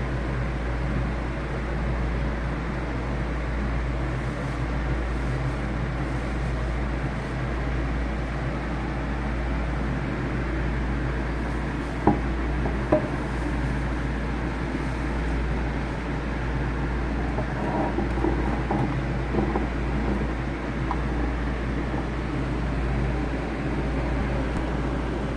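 Steady low hum and hiss of background noise, with two sharp clicks about halfway through, a second apart.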